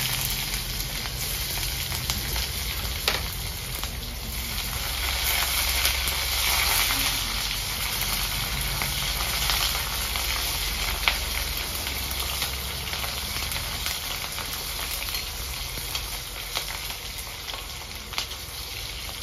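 Sliced onions sizzling as they fry in a hot wok, loudest at first and slowly easing. A metal ladle stirring them clicks against the pan a few times.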